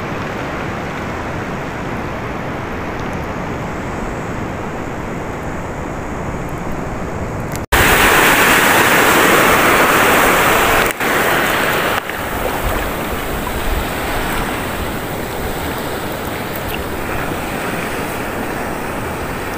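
Steady rush of sea surf washing over a rocky reef flat, with some wind. After a sudden change about eight seconds in, it gets louder and brighter for about four seconds as small waves break close by, then settles back to a steady wash.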